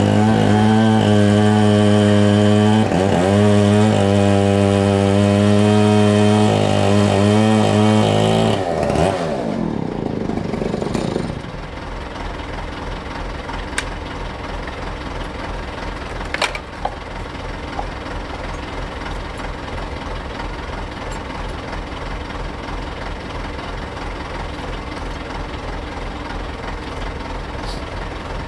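An engine runs fast, dipping in speed a few times, then winds down about nine seconds in. This leaves the Deutz DX 4.50 tractor's diesel engine idling steadily.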